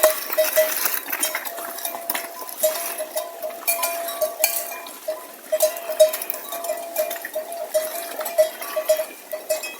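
Bells hung on livestock clanking irregularly, several strikes a second, mostly at one pitch with a few higher-pitched bells among them, as the animals move.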